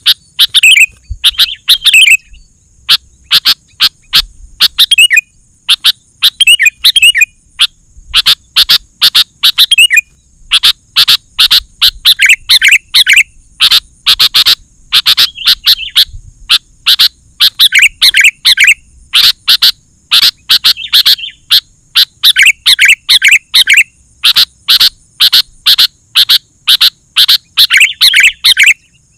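Sooty-headed bulbul calling and singing non-stop: loud runs of sharp chirping notes broken by short bubbling warbled phrases, repeated over and over. A faint steady high-pitched hum runs underneath.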